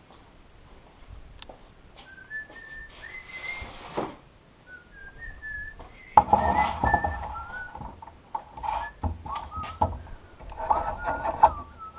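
A man whistling a tune in short, wavering notes while he works, with scattered clicks and knocks of handling tools and wood. About halfway in, a louder steady hum with knocking joins in.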